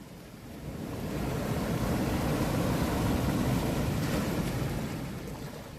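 A surf-like rush of noise that swells up over a couple of seconds, holds, then fades away, like a wave washing in and out.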